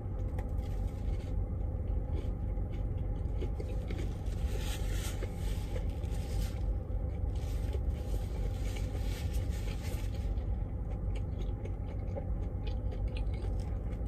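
Paper sandwich wrapper crinkling and rustling in the hands, with chewing, over a steady low rumble in a semi truck's cab. The crinkling is busiest in the first ten seconds or so.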